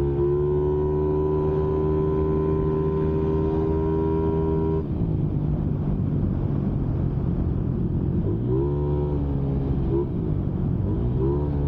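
Motorcycle engine running through a JVT V4 teardrop aftermarket exhaust pipe while riding. It holds a steady note, which drops off about five seconds in, and then its pitch rises briefly twice near the end.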